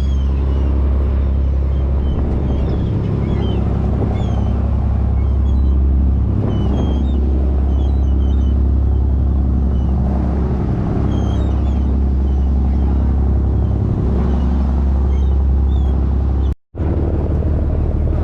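Fishing boat's engine running with a steady low drone. The sound drops out for an instant near the end.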